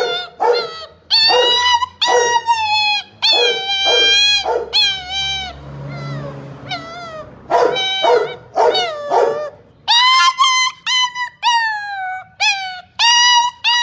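Pit bull puppy whining and crying in a long string of short, high-pitched whines, many dropping in pitch at the end, softer for a moment around the middle; the puppy is asking for the gate to be opened.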